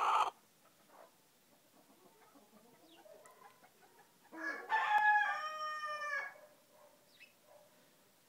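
A young frizzle Pekin bantam rooster crowing once, a single pitched crow about two seconds long starting about halfway through. A short loud burst of noise comes right at the very start.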